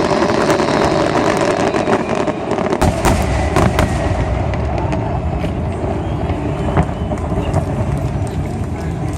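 Fireworks going off: dense crackling, then a deep rumble with several sharp bangs about three to four seconds in. The show's music faintly comes through near the end.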